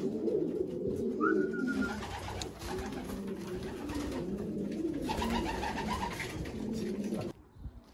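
Several racing pigeons cooing in the loft, their low calls overlapping almost without a break. There is a short higher squeak about a second in, and the sound cuts off abruptly near the end.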